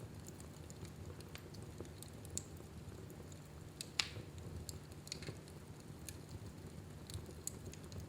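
Fire in a fireplace burning with a steady low rumble and scattered small crackles, with one sharper pop about four seconds in.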